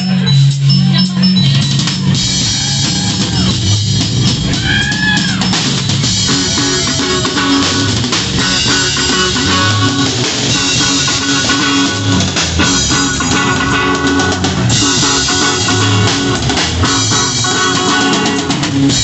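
Live rock band playing: electric guitar over a drum kit with a steady kick drum beat.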